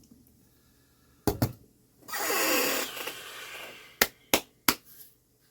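Small metal clock-movement parts and tools clicking as they are handled on the bench. A pair of sharp clicks comes first, then a longer hissing rustle, then three sharp clicks about a third of a second apart.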